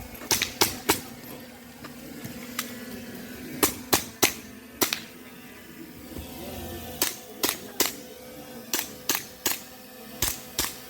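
Airsoft pistol firing a course of fire: about fifteen sharp shots, mostly in quick pairs and threes with short pauses between.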